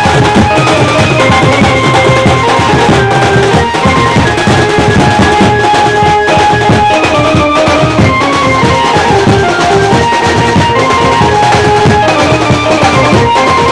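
Benjo band music: an amplified Indian banjo plays a quick stepping melody over loud, steady drumming.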